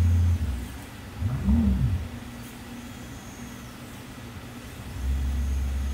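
WLKATA MT4 robot arm's joint motors running as the arm swings. A low hum stops shortly after the start. About a second and a half in, a whine rises and falls in pitch as a move speeds up and slows down. Another low hum starts near the end.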